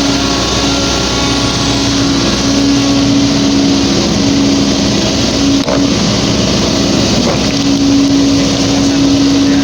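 Hydraulic excavator's diesel engine running under load, a steady drone that swells twice as the machine works. There is a single short knock a little over halfway through.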